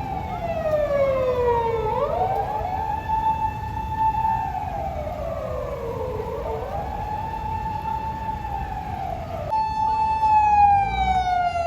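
Japanese police car siren wailing. Its tone holds high, slides down and swoops back up, about every four seconds. Near the end the sound cuts to a siren that holds high and then falls slowly.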